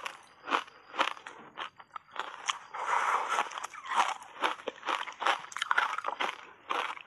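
Crunching and chewing of a block of reshaped ice coated in matcha powder as it is bitten and chewed: a run of sharp, irregular crunches, densest about three seconds in.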